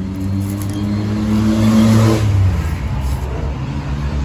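A motor vehicle driving past: its engine hum grows louder, peaks about two seconds in, then fades away.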